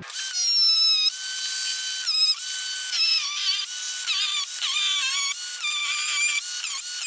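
Music with a thin, high melody and no bass, starting abruptly.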